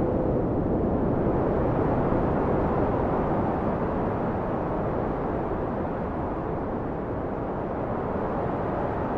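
Steady, low rumbling noise like a dark ambient drone, with a faint held tone at the very start, easing off slightly after a few seconds.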